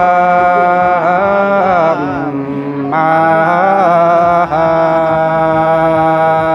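A man singing a slow, chant-like wedding exchange song unaccompanied, holding long drawn-out notes with wavering glides between them and brief breaths about two seconds in and halfway through.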